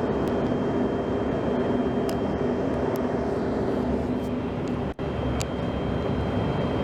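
Steady loud droning noise of a running vehicle, with a low hum under it. It breaks off for a split second about five seconds in.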